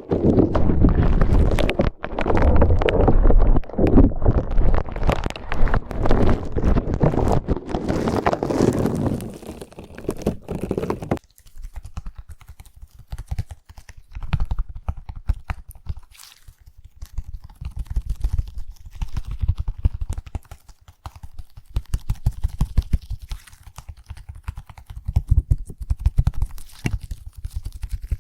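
Slime squished and pressed against a microphone for ear-cleaning ASMR, making dense wet crackling and popping. About eleven seconds in it turns abruptly quieter, to scattered soft clicks and squelches.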